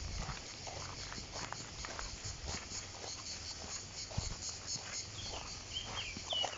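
Insects chirring steadily in a fast, even pulse, with footsteps crunching on a gravel path. A bird gives a few short, high chirps near the end.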